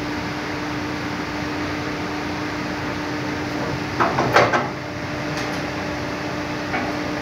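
Rubber vacuum molding hydraulic press running with a steady hum from its hydraulic power unit as the press opens, with a short burst of loud knocks and clatter about four seconds in and a couple of lighter knocks near the end.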